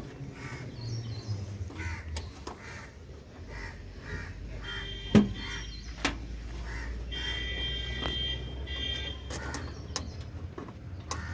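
Birds calling repeatedly over a low steady hum, with a sharp knock about five seconds in and a lighter one a second later.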